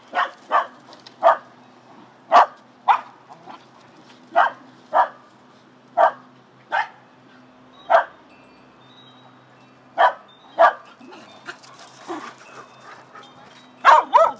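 Shetland sheepdog barking in sharp single barks, roughly one a second, with a short lull near the end before a quick run of barks.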